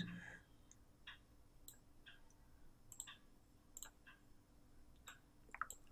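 Near silence with about a dozen faint, irregular clicks from a computer mouse.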